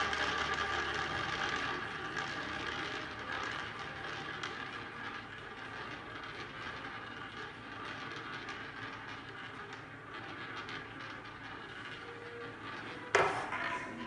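Roulette ball rolling around the track of a spinning roulette wheel: a steady rolling whir that slowly grows quieter. Near the end the ball drops off the track with a sudden loud clatter.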